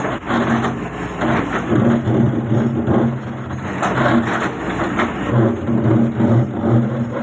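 Doosan excavator's diesel engine running under load, with rough crunching and scraping bursts about once a second from the bucket working the ground.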